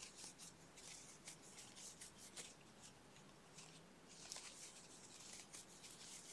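Faint, irregular rustling and scratching of yarn and a crochet hook as double crochet stitches are worked.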